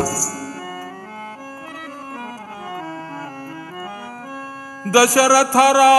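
A harmonium plays a short melody of held notes that step down and climb back up, just after the drum and jingling bells stop. About five seconds in, a singer comes in loudly on a long wavering note over the harmonium.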